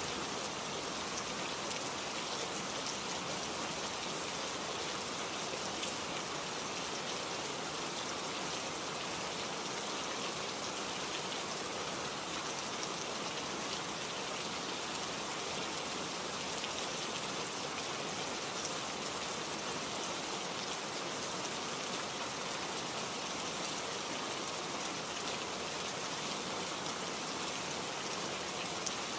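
Steady rainfall, an even hiss of rain with fine drop ticks and no change in intensity.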